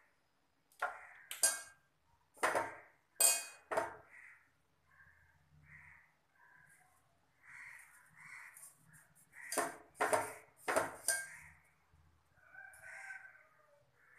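Crows cawing again and again, mixed with two clusters of sharp knocks and clinks from the aluminium mixing bowl as flour and egg are worked by hand, the first cluster about a second in and the second near the two-thirds mark.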